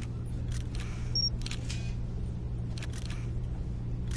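A steady low hum under a series of sharp clicks and short hissing bursts, spaced irregularly about every half second to a second.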